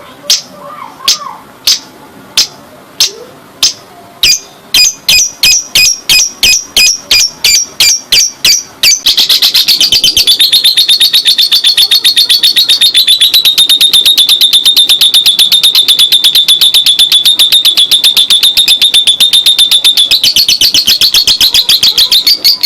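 Lovebird ngekek: sharp single high chirps, a few a second, that quicken and about nine seconds in run together into a long, fast, unbroken chattering trill.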